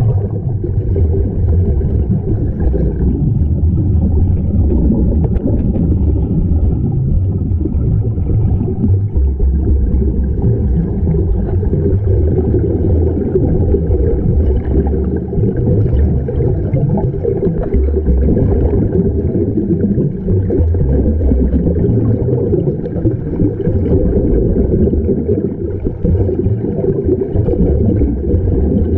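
Steady low underwater rumble and bubbling, recorded below the surface, from air streaming out of the air-fed sea-walk helmets.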